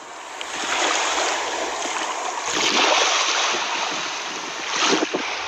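Rushing water sound effect: a steady surf-like noise that swells in at the start and fades out near the end.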